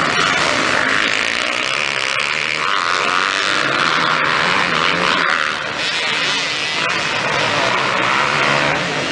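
Several motocross bikes racing, their engines revving up and down in overlapping waves of pitch.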